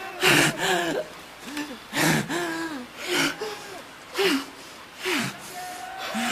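A person gasping raggedly, a sharp breath about once a second, each with a short wavering moan.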